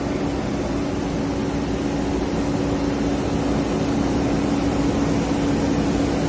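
Diesel engine of an amphibious excavator running steadily with a constant hum, growing slightly louder.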